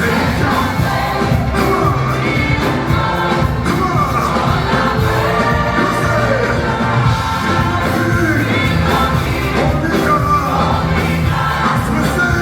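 Live gospel worship music: singing voices over a full band with a steady drum beat.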